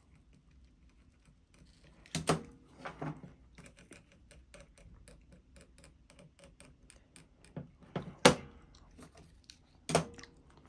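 Clicks and knocks of small hard parts and tools being handled on a workbench, with a run of faint light ticks between them; the sharpest knock comes about eight seconds in.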